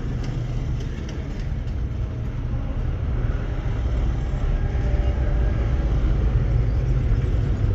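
Toyota Wigo's three-cylinder engine idling as a steady, uneven low rumble. The car has a misfire on cylinder 3 that the scan tool will trace to the injector number 3 circuit.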